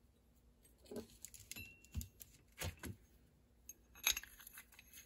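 Faint clicks and clinks of metal suspension-tool pieces being handled and fitted together, with one clink ringing briefly.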